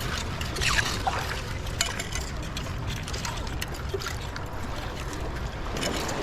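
Clam digging in wet tidal-flat mud: a hand rake scraping through the mud with short clicks and scrapes, and wet mud and water trickling.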